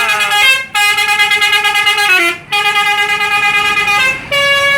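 A bus's Basuri 'telolet' multi-tone musical horn playing its chiming melody. A few stepping notes are followed by two long blasts of held chord notes with short breaks between them, the first sliding down in pitch at its end, and another blast begins near the end.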